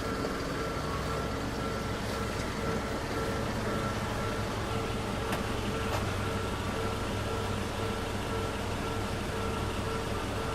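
Japanese railway level-crossing warning bell sounding steadily over a constant rumble of rail or road traffic.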